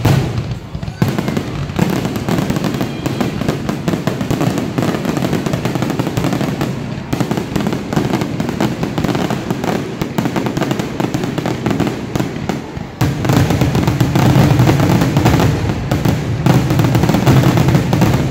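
Aerial fireworks going off in a rapid, unbroken barrage of bangs and crackles, louder from about 13 seconds in.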